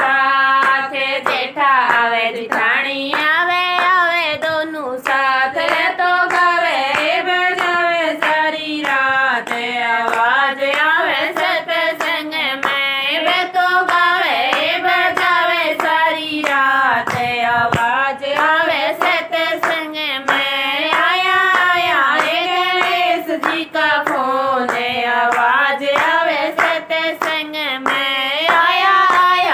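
A Hindi-Rajasthani devotional bhajan to Ganesh, sung without pause by a single voice in a swaying melody, with hand-claps keeping the beat.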